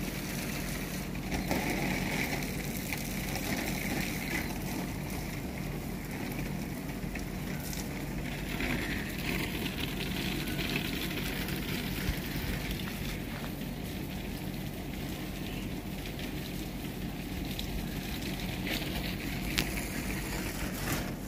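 Water jetting from a garden hose and pattering onto the leaves of potted plants, a steady hiss.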